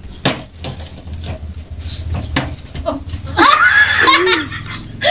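A couple of sharp knocks, then loud laughter from about three and a half seconds in, its pitch gliding up and down.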